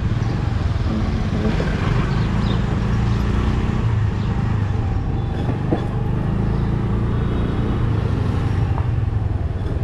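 Steady low rumble of road vehicle noise, engine and tyres, with no clear individual events.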